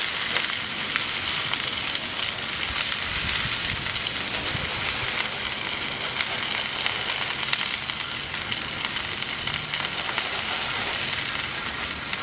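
Strips of beef tenderloin sizzling steadily as they sear in a very hot skillet with a little pork fat, cooked a few pieces at a time so the pan stays hot enough to brown rather than stew the meat. Light clicks come now and then as a carving fork turns the strips against the pan.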